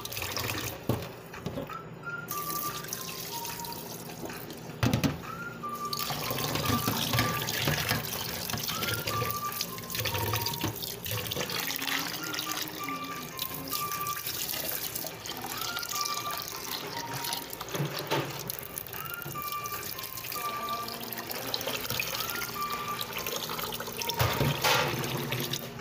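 Kitchen tap running into a steel saucepan of basmati rice in a stainless steel sink, the water splashing as the rice is rinsed. A short, high background music phrase repeats about every two seconds over the water.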